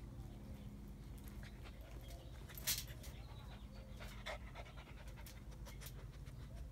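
Rottweiler puppy panting faintly while mouthing a towel, with scattered sharp clicks and knocks, the loudest nearly three seconds in.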